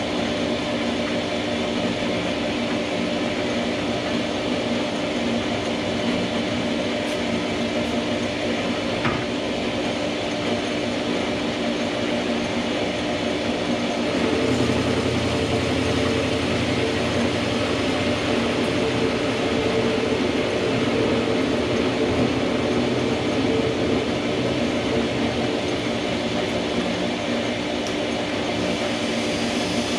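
Small metal lathe running with its chuck spinning while a cordless drill turns the feed handwheel to power the cut. About halfway through the sound grows louder, with an added low hum.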